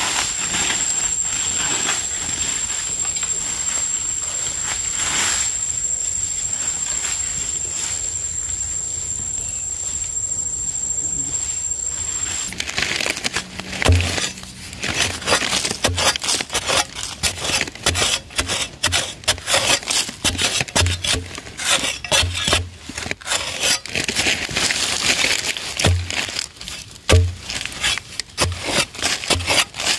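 A steady high whine over rustling for about the first twelve seconds, cutting off suddenly; then a metal digging blade chopping and scraping into hard, dry soil, about one dull strike a second, with loose earth scraped and crumbling between strikes.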